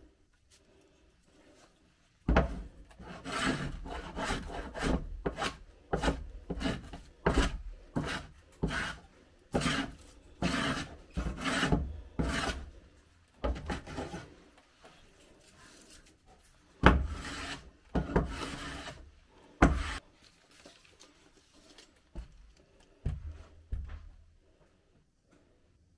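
A hand tool rasping back and forth along the edge of a wooden stair tread, in quick strokes about two a second. The strokes stop about halfway through, pick up again for a few strokes, and a couple of knocks come near the end.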